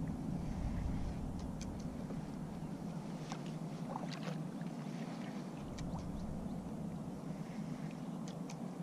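Small waves lapping against a sit-on-top fishing kayak's hull, a steady low wash, with a few scattered light clicks.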